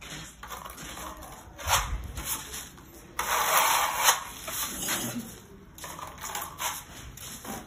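Steel plastering trowel scraping skim coat across a wall in repeated strokes, with light clicks between them; the longest and loudest stroke comes about halfway through.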